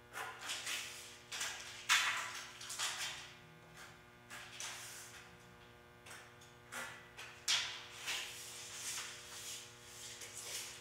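A pencil marking 2x4 lumber and a tape measure being handled: irregular short scratchy strokes and a few sharp clicks, over a steady electrical hum.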